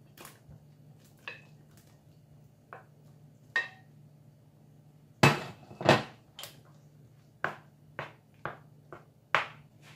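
Kitchen utensil knocking and clinking against a pan and dish while cooked chicken is added to a cream sauce: about a dozen sharp knocks, some with a short metallic ring, the loudest two about five and six seconds in.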